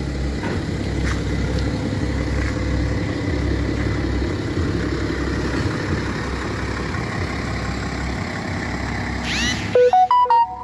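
BMW 7 Series engine idling, a steady low rumble. Near the end, a short swooping sound and then a quick run of electronic beeps at several pitches, louder than the engine.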